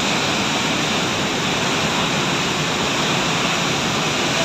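Turbulent floodwater rushing downstream in a steady, even wash of noise: the flood discharge released from a full reservoir.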